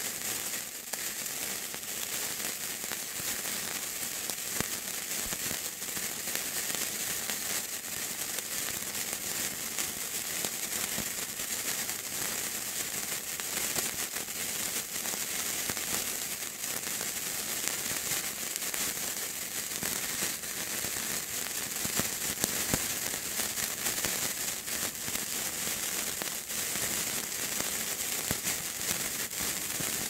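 Burning fuse hissing and sputtering steadily, with a dense scatter of fine crackles and a few sharper pops.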